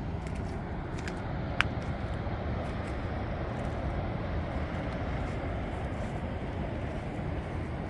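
Steady outdoor rushing noise of wind and ocean surf at the beach, with a couple of faint clicks early on.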